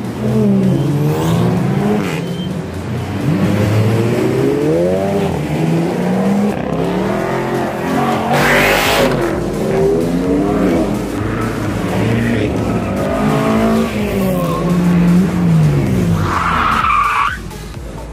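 Car engines revving hard, their pitch climbing and falling again and again, with a short burst of noise about halfway through and a brief screech near the end.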